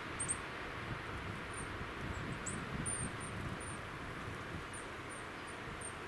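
Tits calling at garden feeders: short, high, thin call notes scattered through, over a steady low rumble and hiss.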